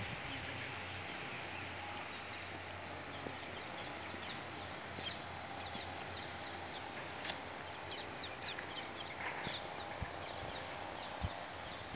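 Faint steady background hiss with many short, high bird chirps, more frequent in the second half, and a couple of soft knocks near the end.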